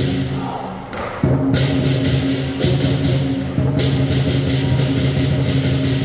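Lion dance percussion: drum and crash cymbals played in a fast, driving rhythm. The cymbals drop out right at the start and come back in about a second and a half later.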